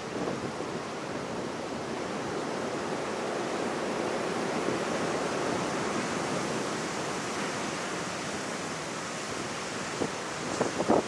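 Sea surf washing onto a pebble beach, a steady rush that swells and then eases, with wind on the microphone. A few short knocks near the end.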